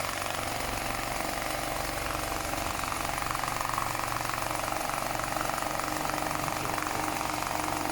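BAS-342GXL CNC programmable pattern sewing machine stitching, its needle mechanism making a rapid, steady run of strokes.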